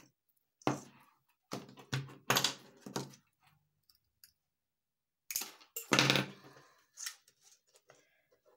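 Hands handling craft materials on a wooden table: clicks, knocks and rustling as artificial berry sprigs on wire stems are sorted and small metal nippers are picked up and set down. The sounds come in several short bunches, the loudest about six seconds in.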